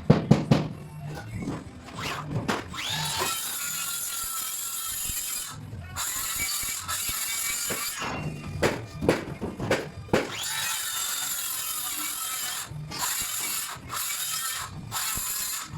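A handheld power tool's motor spins up and runs for a couple of seconds, twice. Quick clicks and knocks come between the runs.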